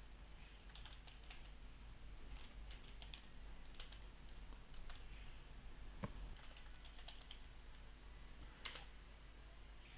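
Faint computer keyboard typing: light, irregular key taps, with two sharper key presses in the second half.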